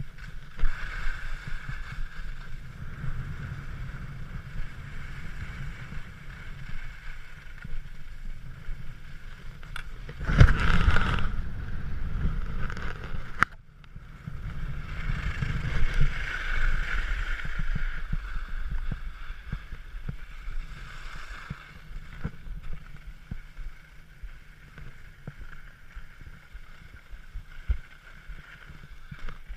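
Skis sliding over packed, groomed snow: a continuous scraping hiss with low wind rumble on a helmet-mounted action-camera microphone. The scraping swells loudly about ten seconds in and again around sixteen seconds.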